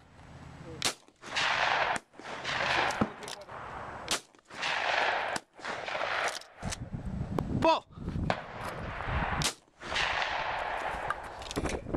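12-gauge over-under shotgun fired at clay targets: several sharp reports spread across the stretch, the first about a second in and a loud one near eight seconds, with stretches of noise between them.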